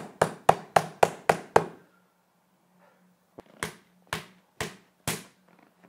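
A small wooden mallet knocking on a green ESA impact-protection pad laid over a hand on a table. There are about seven quick knocks at roughly four a second, a pause of about a second and a half, then five slower knocks. It is an impact test of the padding, and the struck hand feels no pain.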